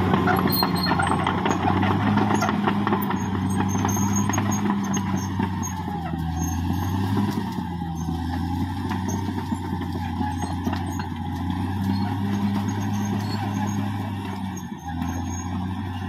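Caterpillar D6R XL bulldozer's diesel engine running steadily under load as it pushes soil, with a wavering high whine and a rapid clatter of the steel tracks over it.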